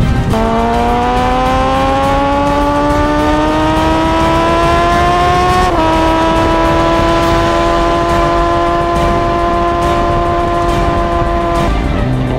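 Sport bike engine at high revs, heard from on board with wind noise. Its pitch climbs steadily for about five seconds, dips slightly, then holds steady before dropping near the end.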